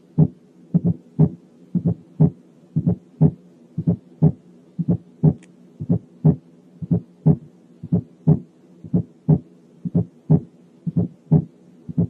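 Auscultated heart sounds playing at about 60 beats a minute. Each beat is a first heart sound heard as two close taps, with an extra sound added to it, followed by a single second heart sound, over a faint steady hum.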